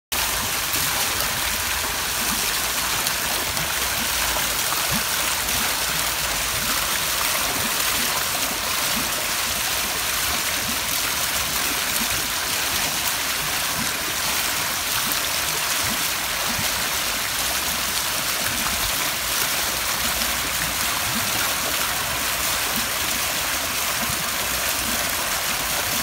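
Water spilling over the stone ledges of a small garden cascade and splashing into the pool below: a steady, even rush of falling water.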